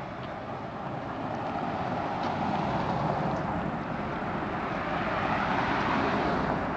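A car passing on the road: a steady rush of engine and tyre noise that swells over the first few seconds and eases off near the end.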